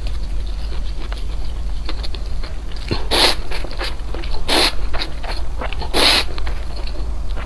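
Close-miked eating sounds: small wet clicks of chewing, broken three times, about a second and a half apart, by a louder noisy bite or slurp of Chinese food. A steady low hum runs underneath.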